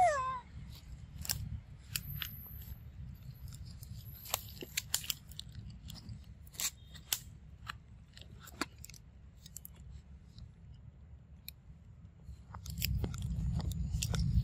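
A pig-tailed macaque biting and chewing a ripe mango: scattered, irregular wet clicks and smacks. A brief falling squeal comes at the very start, and a low rumble on the microphone swells near the end.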